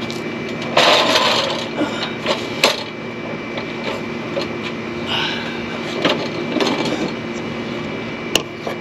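Hand work fitting a plastic cab air-extractor vent into its opening from underneath the truck: rubbing and scraping, loudest about a second in, with a few sharp clicks, one near the end, over a steady background hum.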